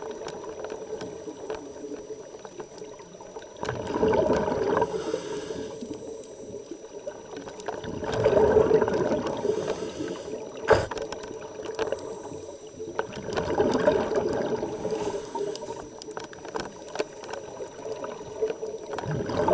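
Scuba divers breathing through their regulators underwater: a burst of exhaled bubbles every five seconds or so, with a fainter hiss in between. One sharp click comes about eleven seconds in.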